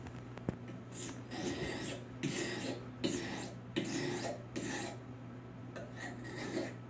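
Stainless carving knife blade scraped in repeated hard strokes across a coarse sharpener, about eight rasping strokes with a short break partway through, during rough sharpening at a raised edge angle.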